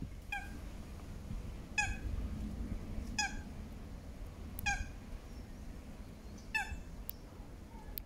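An animal calling five times: short, clear, slightly falling calls about one and a half seconds apart, over a low steady rumble.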